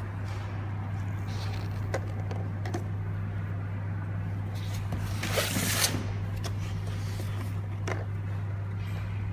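Automatic bottle labeling machine running: a steady low electric motor hum with scattered light clicks from the mechanism as glass cough syrup bottles pass through, and a brief louder rush of noise about five and a half seconds in.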